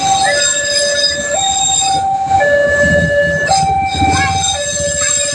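Railway level-crossing warning siren sounding an electronic two-tone alarm, switching between a higher and a lower tone about once a second, with a low rumble underneath that is strongest midway.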